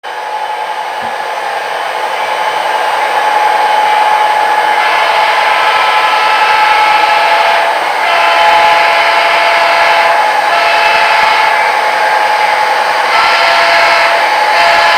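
Model train running close by: a steady whine with several tones over a hiss, growing louder over the first few seconds as it comes near, then holding steady.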